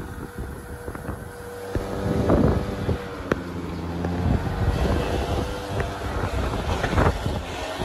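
Wind buffeting the microphone over a running engine, with a few knocks.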